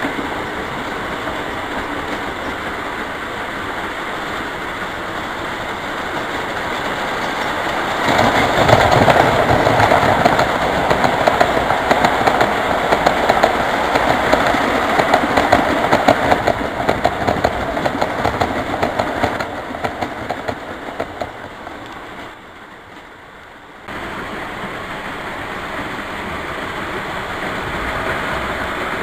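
O gauge three-rail model train running on the track, a steady rumbling rattle of wheels on rails. It grows louder about eight seconds in, fades again, drops away briefly and comes back suddenly near the end.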